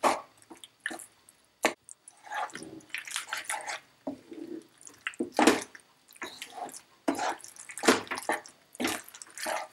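Wooden spoon stirring macaroni through thick, stringy cheese sauce in a pan: irregular wet squelches, with a few sharp knocks of the spoon against the pan.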